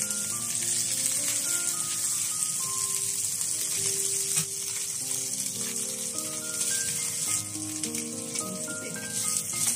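Yellow catfish sizzling steadily as they fry in hot oil in a stainless steel wok, over background music with a melody of held notes.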